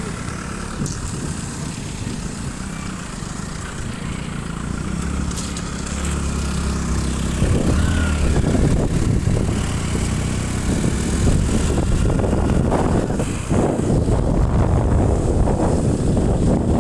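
Vehicle engine running steadily while driving. From about seven seconds in, heavy wind buffeting on the microphone grows louder and covers it.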